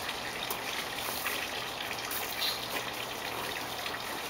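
Steady rushing background noise with a few faint ticks.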